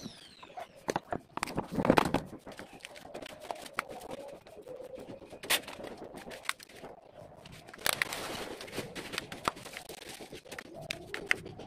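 Scattered knocks and clatter of an aluminium stepladder being handled and set up, the heaviest knock about two seconds in. A dove coos faintly in the background.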